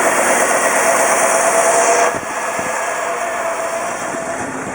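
1958 Chevrolet Bel Air's engine running cold and not yet holding an idle, a steady mechanical noise with a strong hiss. It is a little louder for the first two seconds, then settles slightly lower.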